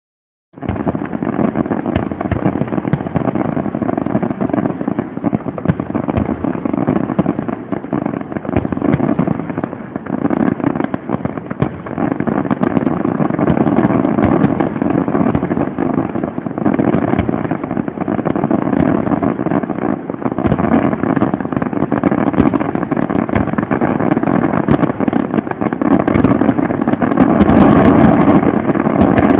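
Fireworks display: a dense, unbroken barrage of bangs and crackling shell bursts, starting about half a second in and loudest near the end.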